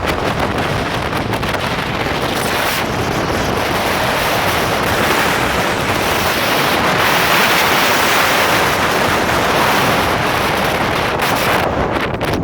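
Strong wind blowing across the microphone: a loud, steady rushing noise that swells in the middle.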